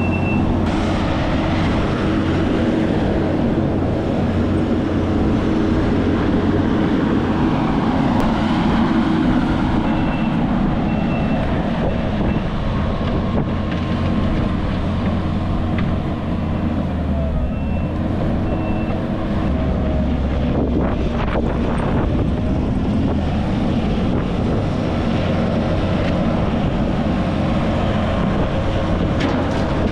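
Diesel engine of earthmoving equipment running steadily while digging and loading dirt. Short back-up alarm beeps sound twice, and there are a few sharp knocks in the second half.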